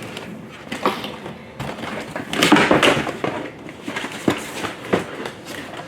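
Toy box packaging being opened by hand: cardboard and plastic rustling and crinkling, with sharp clicks and snaps as pieces are pulled loose, busiest a couple of seconds in.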